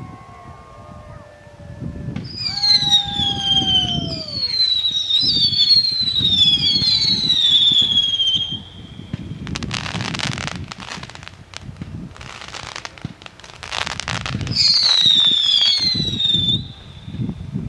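Fireworks: several whistling rockets climbing, their shrill whistles overlapping and falling in pitch, from about two seconds in to about eight. A few seconds of hissing bursts follow, then another falling whistle near the end.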